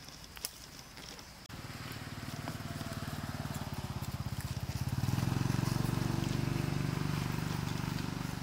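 A small engine running with a rapid, even throb, starting abruptly about a second and a half in and growing louder about five seconds in.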